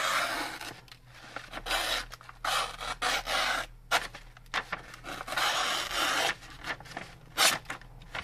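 Sheet of paper rustling and scraping as it is pushed and sliced against the edge of a sharp knife blade, in a series of short strokes with pauses between them, during a sharpness test of the knife's factory edge.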